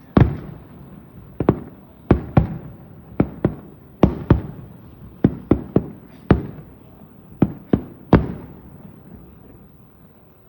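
Aerial firework shells bursting in a rapid irregular series: about sixteen sharp bangs over eight seconds, each echoing away. Near the end the bangs stop and the sound fades out.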